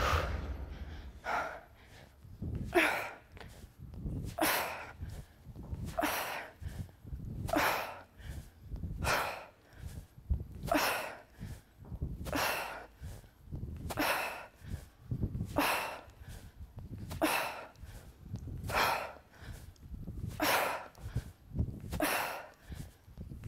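A person breathing out sharply with each kettlebell swing, about one forceful exhale every second and a half.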